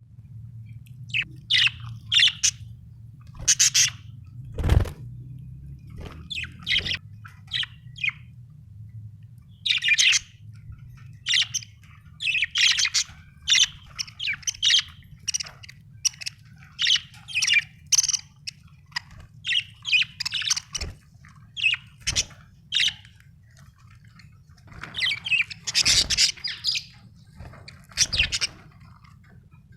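Budgerigar chirping in short, high bursts of chirps and warbles again and again. A few dull knocks are heard, the plainest about five seconds in, over a steady low hum.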